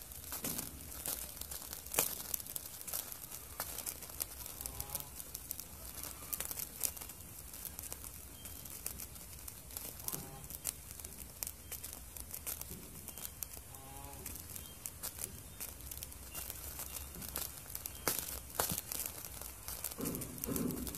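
Homemade cat-food-can alcohol stove burning down, with irregular crackles and ticks throughout.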